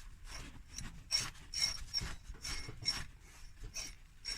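Air-conditioning compressor clutch on a Renault Laguna III ticking with a scratchy, crunching click about two to three times a second. The noise persists after a new pulley bearing; the owner suspects the clutch plate catching on a rough, worn magnetic coil ring.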